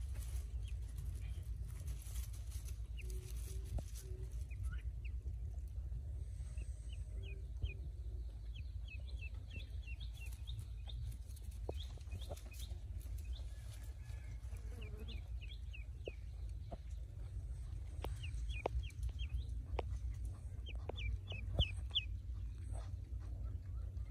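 Pekin ducklings peeping: many short, high chirps in clusters, over a steady low rumble.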